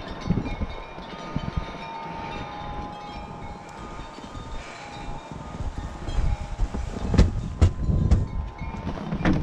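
Footsteps crunching through snow under wind buffeting the microphone, with faint bell-like ringing in the first half. A few sharp clacks come near the end as the walker reaches the door.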